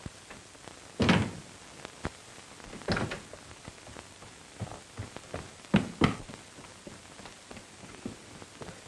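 A handful of dull thuds and knocks: the loudest about a second in, another near three seconds, and two in quick succession about six seconds in, with faint clicks between.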